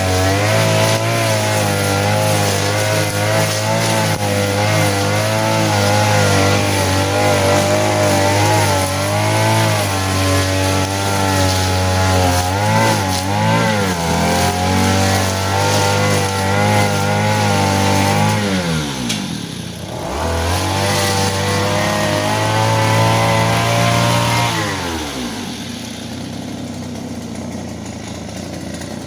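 Small petrol engine of a grass-cutting machine running at high revs, its pitch wavering as it works. About two-thirds through, the revs drop sharply and climb back. Near the end they fall to a lower, quieter speed.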